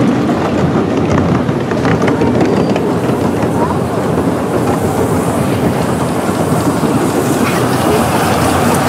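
Ride-on miniature railway train running along its track, heard from aboard among the passengers: a steady rumble and clatter of the wheels and carriages.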